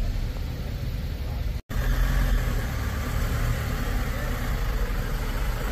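Infantry Squad Vehicles' diesel engines idling in a steady low rumble. The sound drops out for an instant about a second and a half in.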